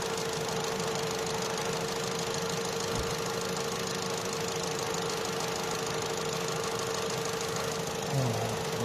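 Opel Astra J 1.4 four-cylinder petrol engine idling steadily with a constant high hum, running after a repair for a misfire on one cylinder.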